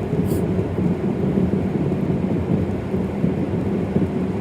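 A steady low rumble with no breaks or separate events.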